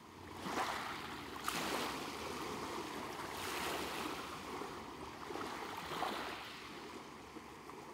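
Small waves lapping and washing at the shoreline of a calm sea, swelling and easing, with a couple of sharper splashes, about one and a half seconds in and again around six seconds.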